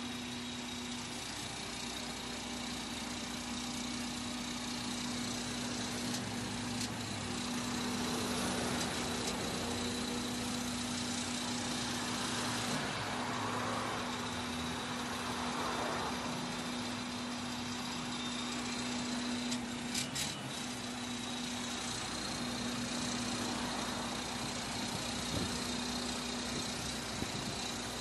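Mobile crane's engine running steadily with an even hum while it holds a suspended powerboat, with a few light clicks about two-thirds of the way through.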